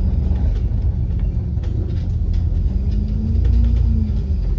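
Double-decker bus on the move heard from inside: a steady low engine and road rumble, with a faint engine note that rises and falls in pitch about halfway through, and a few light ticks.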